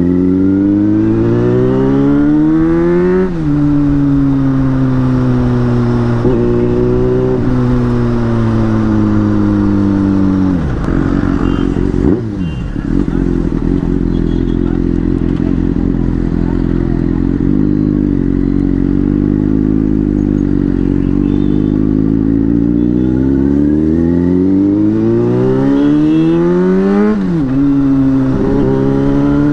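Motorcycle engine under way: the revs climb and drop at a gear change about three seconds in, hold steady while cruising, fall away as the bike slows around ten seconds in, then hold steady again. Near the end the revs climb again with two quick upshifts.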